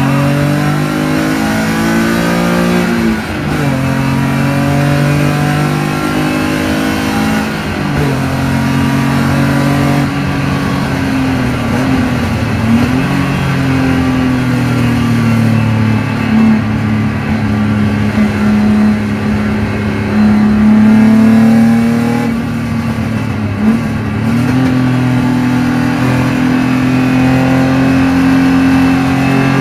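BMW 325i E30's M50B25 2.5-litre straight-six engine pulling hard, heard from inside the cabin. Its pitch rises under throttle and breaks and recovers several times as gears change.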